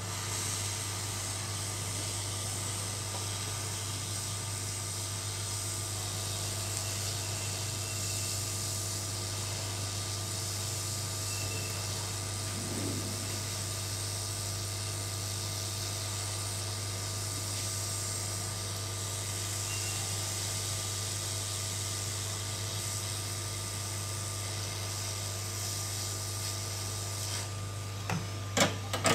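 Hot-air rework station blowing a steady hiss of hot air onto the board to desolder a shorted capacitor. The airflow cuts off about a second before the end, followed by a few light clicks.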